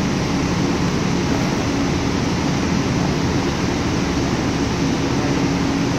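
Steady droning noise with a low hum running under it, unchanging throughout.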